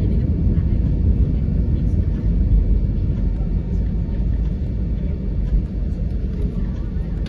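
Steady low rumble inside an Airbus A320's cabin as the airliner taxis after landing.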